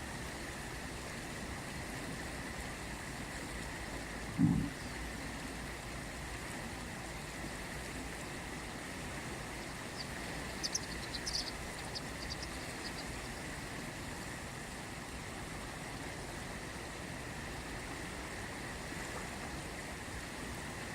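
The Ganges flowing past, a steady rushing of water. A single low thump sounds about four and a half seconds in, and a few brief high chirps come a little past the middle.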